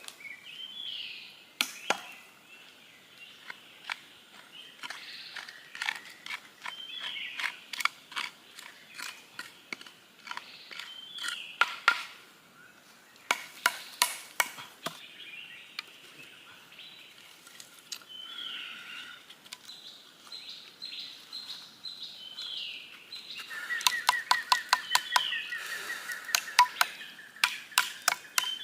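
Sharp, irregular knocks and taps, coming faster near the end, with a bird giving a short chirping call every few seconds.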